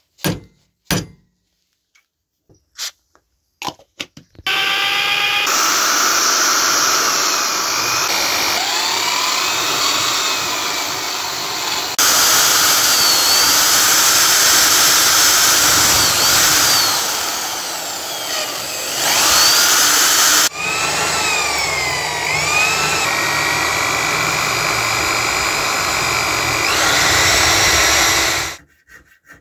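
A few sharp clicks of a pointed steel marking tool on the blade, then an electric drill boring a hole through the hardened steel knife blade held in a vise. Its motor whine dips and rises as the bit bites and frees up, and it stops suddenly near the end.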